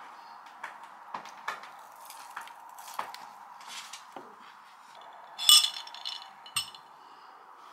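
A cat clawing a fabric sofa, a dry ripping scratch in short strokes, mixed with small taps of chopsticks on a ceramic bowl. About five seconds in comes a loud ringing clink of tableware, then a knock on the wooden table.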